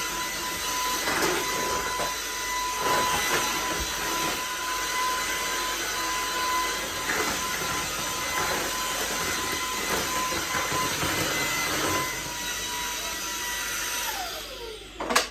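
Vacuum cleaner running with a steady motor whine over the rush of suction, then switched off near the end, its whine falling in pitch as the motor winds down.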